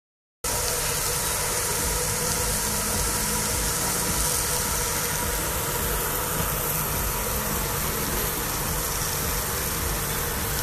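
Meat patties sizzling on a hot grill: a steady hiss with a faint machine hum underneath. It starts abruptly about half a second in.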